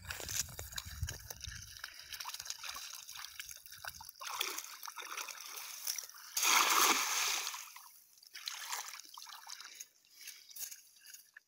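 Water sloshing lightly, then a cast net hitting the river surface with a splash about two-thirds of the way in, the loudest sound. A few smaller splashes follow as it sinks.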